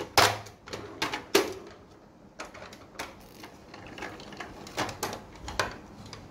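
Hard plastic clicks and knocks as the hinged panels of a toy camper are swung open and unfolded. The loudest knocks come within the first second and a half, followed by lighter clicks every second or so.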